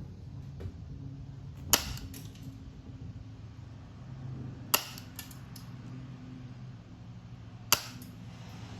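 Hand snips cutting a small plug of sheet-steel floor pan: three sharp snaps, about three seconds apart, as the piece is trimmed down bit by bit, over a steady low hum.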